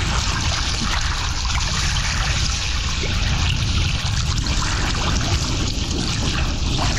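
Choppy sea water splashing and sloshing right at the microphone, over a steady low rumble.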